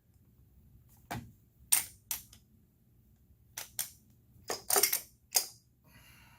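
A series of sharp clicks and knocks of hard parts being handled, about eight of them at irregular spacing, some in quick pairs, over a faint low hum.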